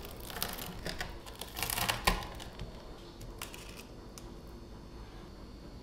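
Chef's knife cutting through a crispy fried shredded-potato pancake, two passes of crackling crunch followed by a sharp tap about two seconds in. A few faint crackles follow as the cut wedge is pulled free.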